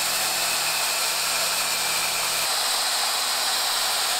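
Circular saw running steadily as it cuts through a sheet of plywood, its tone shifting slightly about two and a half seconds in.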